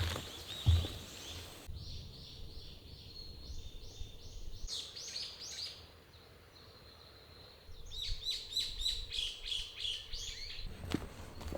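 Small songbird singing in two runs of quick, repeated high chirping notes, the first about two seconds in and the second about eight seconds in.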